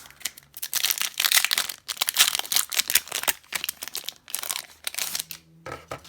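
Plastic wrapper of a hockey card pack being torn open and crinkled by hand: a dense crackling that comes in several spells and stops about five seconds in.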